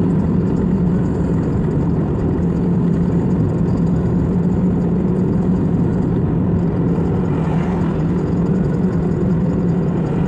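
Car driving along a road: steady engine and tyre noise with a constant low hum.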